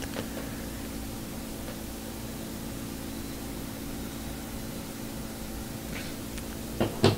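Steady low hum and hiss of room tone, with a couple of brief soft knocks near the end.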